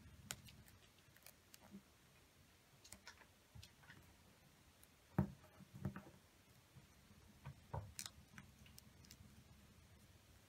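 Faint clicks and crinkles of a sheet of paper being folded and creased by hand, with a few sharper taps against the table. The loudest tap comes about halfway through.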